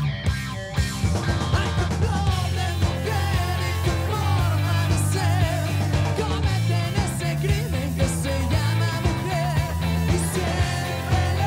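Live rock band playing: electric guitars, bass guitar and drums, with a gliding lead line over a steady bass and beat.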